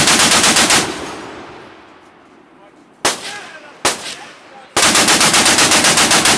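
Short-barreled Browning M2HB .50-calibre machine gun firing: a burst that ends just under a second in, its echo dying away, two single shots, then another steady burst of about nine rounds a second near the end.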